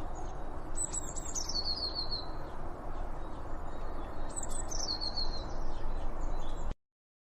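A songbird sings the same short phrase twice, a quick run of high notes falling in pitch, over a steady background hiss; the recording cuts off abruptly near the end.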